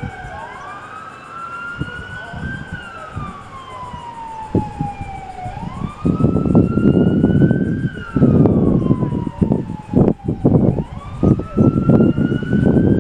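Police car siren sounding a slow wail, rising and falling in pitch about every five seconds. A loud, uneven low rumble comes in about six seconds in.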